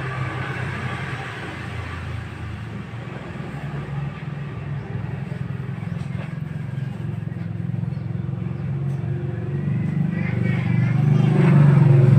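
A motor vehicle's engine running steadily. It grows louder over the last couple of seconds.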